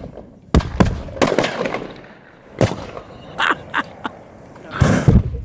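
Aerosol cans bursting in a fire: a string of sharp bangs, about eight, irregularly spaced, with the loudest pair near the end.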